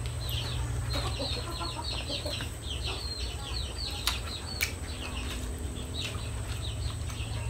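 Chickens calling: a run of quick, high peeping calls, several a second, strongest in the first half. Two sharp clicks about four seconds in.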